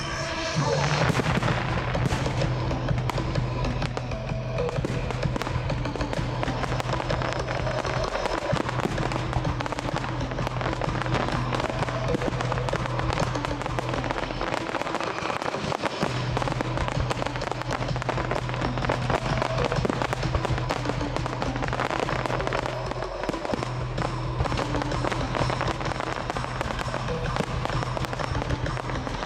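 Fireworks display going off continuously: dense rapid pops and crackles from comets and star-bursting aerial shells, with music playing throughout.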